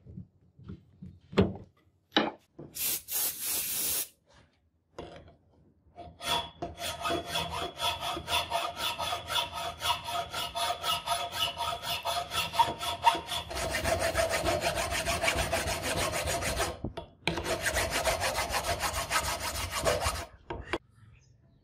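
Flat hand file worked back and forth across a cast brass sword guard clamped in a vise, in quick, even rasping strokes with a faint ringing from the file. A few separate scrapes and clicks come first, then the filing starts about six seconds in and runs on with one brief pause.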